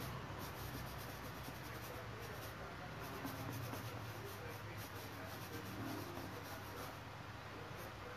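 A drawing tool scratching and rubbing on canvas in quick repeated strokes as a large monochrome figure is sketched.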